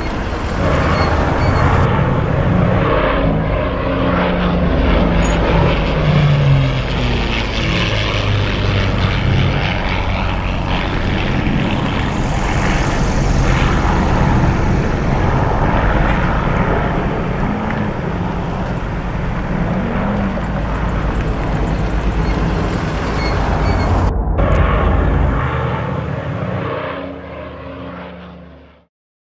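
De Havilland Mosquito's twin Rolls-Royce Merlin V12 piston engines running loudly and steadily in flight. The sound breaks briefly near the end, then fades and cuts off.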